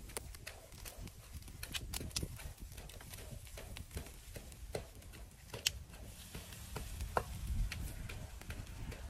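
Pig-head pieces grilling on a wire rack over charcoal embers: scattered, irregular crackles and pops, with light clicks of bamboo tongs against the meat and the grill as it is turned.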